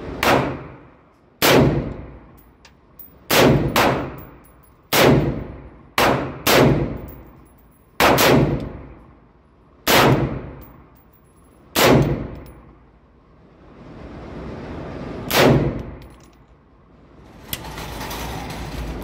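Semi-automatic 5.56 rifle fired about a dozen times at an uneven pace, some shots in quick pairs and a longer pause before the last, each shot ringing out in the echo of an indoor range.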